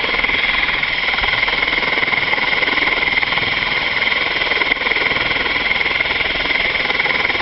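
Rescue helicopter running on the ground close by with its rotor turning: a loud, steady turbine whine over the fast, even beat of the rotor blades.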